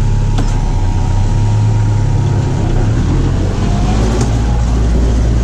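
Tractor engine running steadily under load, driving a PTO-powered stalk shredder through sunflower stalks. The low engine note drops a little about three and a half seconds in.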